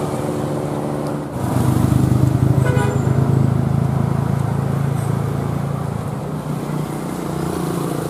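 Diesel engine of a large tour coach pulling uphill past at close range: a low, steady rumble that grows louder about a second in, with a short horn toot near three seconds.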